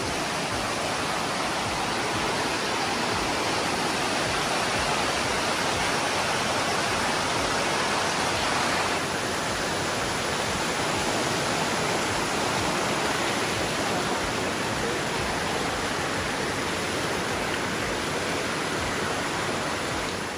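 Waterfall: a steady rush of water pouring over a rocky cascade.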